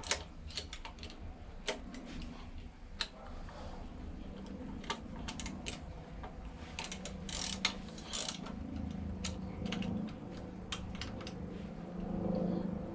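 Ratchet wrench clicking in short runs as bolts on a Honda CT110 engine are undone, with scattered metallic clicks and taps from the tools.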